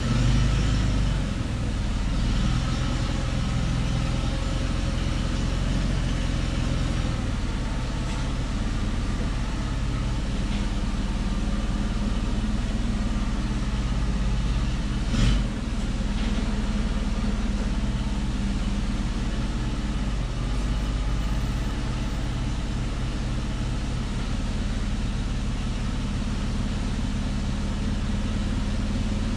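Forklift engine running steadily at low revs. A single sharp knock about fifteen seconds in.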